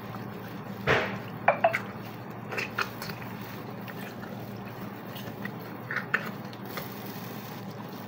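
Wet squelching of a raw, marinated whole chicken being handled with plastic-gloved hands as a squeezed lemon half is stuffed into its cavity. A few short squishes are scattered through it, the loudest about a second in, over a steady low hum.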